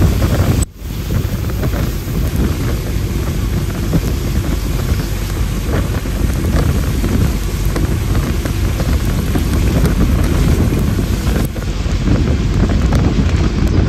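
Wind buffeting the microphone held out of a moving bus's window, with the bus's road and engine noise underneath, a loud, steady rush that drops out briefly about a second in.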